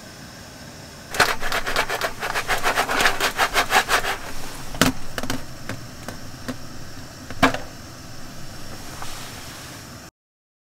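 Popcorn kernels popping inside a lidded metal mess tin held over a small burner. About a second in, a rapid run of pops starts and lasts some three seconds, then it thins to scattered single pops. The sound cuts off near the end.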